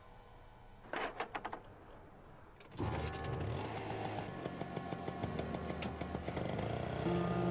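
Vintage Vespa scooter: a quick run of clicks about a second in, then its small two-stroke engine starts suddenly about three seconds in and keeps running steadily as the scooter pulls away.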